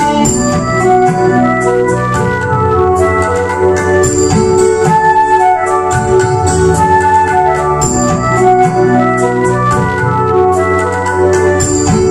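Music: an electronic keyboard with an organ-like sound playing a quick melody of short notes over a light, regular percussion beat.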